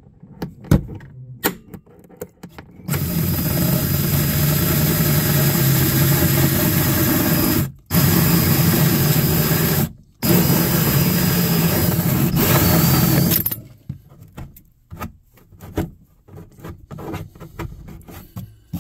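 Snap-on cordless drill spinning a 2.5-inch hole saw through the dash panel. It runs for about ten seconds, stopping briefly twice, with a few light clicks before it and handling knocks after.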